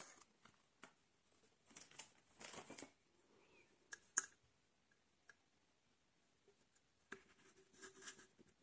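Faint handling of a round metal tin and its clear plastic wrapper: a soft rustle about two seconds in, two sharp clicks about four seconds in, and a rubbing scrape near the end as the tin's lid is gripped and worked.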